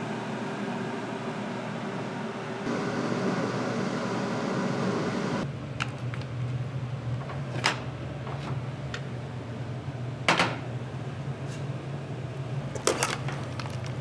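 Steady mechanical hum and room noise that changes abruptly twice in the first half. Over a lower steady hum, a few sharp clinks or knocks follow, the loudest about ten seconds in and another near the end.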